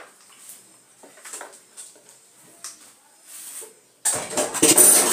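Faint scattered clicks and light knocks of kitchen utensils and dishes. About four seconds in, a loud, steady rushing noise starts abruptly.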